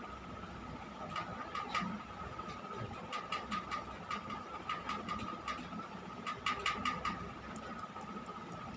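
A faint steady hum with a single even tone, and many soft irregular clicks and rustles over it. No sneeze.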